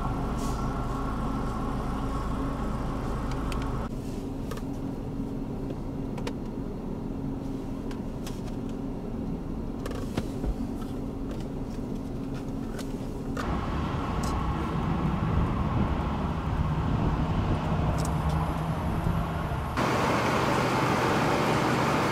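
Steady low hum of an idling motor vehicle engine, its tone and loudness shifting abruptly about four, thirteen and twenty seconds in as the footage changes. Over the last two seconds a louder, even hiss lies over the engine hum.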